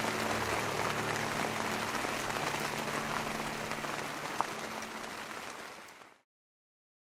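Steady rain falling, an even patter that fades out about five seconds in and ends in silence a second later.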